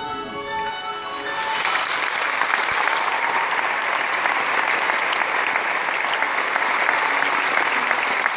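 An orchestra's last held notes ring out and stop about a second in, then a large audience applauds steadily.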